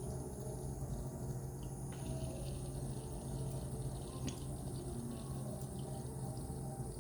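Anti-gravity water-drop humidifier running: water dripping and trickling over a steady low hum from its pump, with an occasional small drip click.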